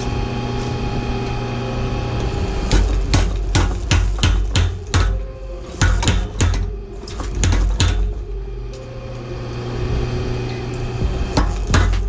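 Power hammer running with a steady motor hum, then delivering runs of rapid heavy blows on hot steel, about three a second, to drive an eye punch into a hammer-head billet. The first run starts a few seconds in and lasts about four seconds, a short burst follows, and after a pause in which only the hum is heard the blows start again near the end.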